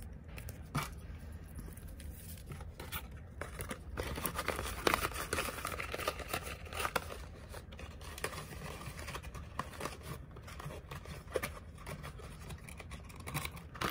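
Hands handling a pink card wallet and pulling its white cardboard insert out: paper and card rustling and scraping with light taps and clicks, busiest about four to seven seconds in.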